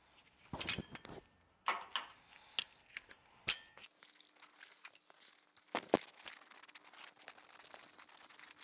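Metal hand tools clinking and rattling, a ratchet extension and spark plug socket being handled around an engine's spark plugs, as a string of irregular sharp clicks and clinks, with a louder double clink about two-thirds of the way through.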